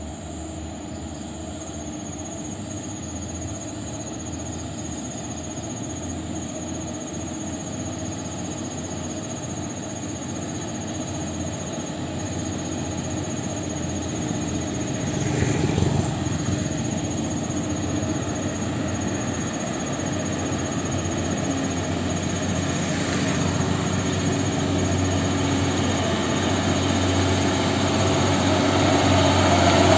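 A convoy of Hino dump trucks approaching, their diesel engines growing steadily louder as they draw near, with a steady high-pitched squeal above them throughout and one brief louder burst about halfway through.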